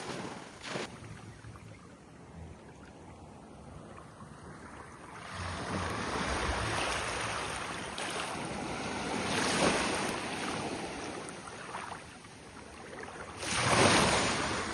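Waves washing onto a beach, with wind on the microphone; the surf swells and fades several times, loudest near the end.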